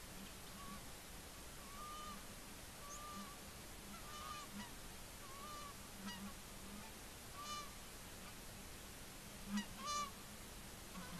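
A flock of geese flying over, honking: short single honks about every second, the two loudest close together near the end.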